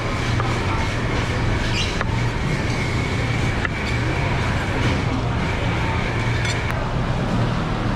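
Steady low hum and background noise with a faint steady high tone, and a few light clicks of a sashimi knife against a plastic cutting board as fish is sliced.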